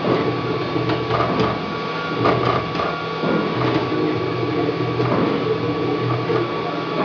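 Wanhao Duplicator 3 dual-extruder desktop 3D printer printing: its stepper motors whir in tones that change pitch every second or so as the print head moves, over a steady tone, with occasional light clicks.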